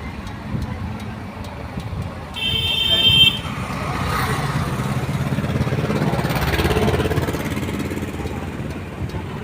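A vehicle horn honks once for about a second, two and a half seconds in, and is the loudest sound. Around it is roadside traffic, with a vehicle engine swelling and fading in the middle.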